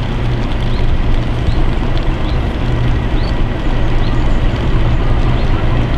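English Electric Class 37 diesel locomotive approaching with its engine running steadily, a deep drone that grows slightly louder as it nears.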